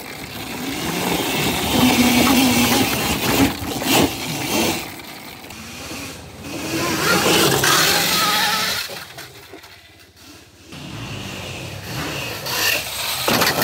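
Riding noise from an electric quad with a chain-driven QS180 motor on a dirt trail: a loud rattle and crunch from the drive chain and tyres over the ground, swelling and easing with the terrain. It goes briefly quieter about ten seconds in.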